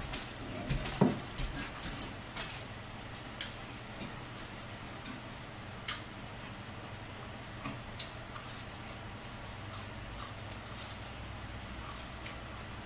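Eating sounds at a table: chewing and mouth sounds with scattered clicks of forks against plates. Busiest in the first couple of seconds, then sparser.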